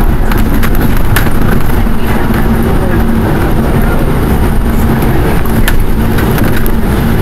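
Moving city bus heard from a passenger seat: a loud, steady low rumble of engine and road noise with a constant hum, broken by a couple of brief rattles.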